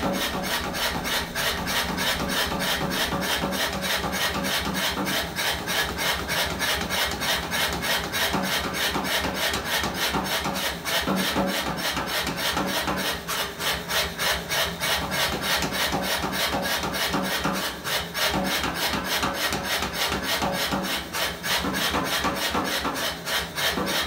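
Power hammer pounding a red-hot steel bar in a steady rapid rhythm, about four blows a second, drawing out tapers and knocking off the edges.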